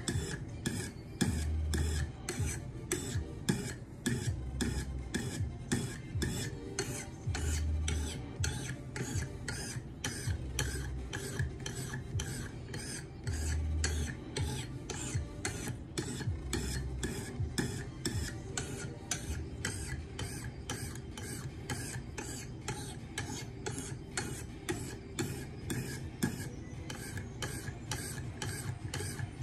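300 grit stone on a KME guided sharpening rod being stroked along a knife edge in quick, even downward passes, about two to three scrapes a second, with low bumps about every three seconds in the first half. This is the 300 grit stage, working the edge until a burr forms along the full length of the blade.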